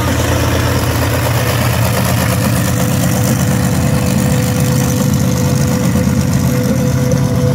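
Monster truck's big engine running with a steady low drone as it drives around the show ring, and a steady whining tone joins in a few seconds in.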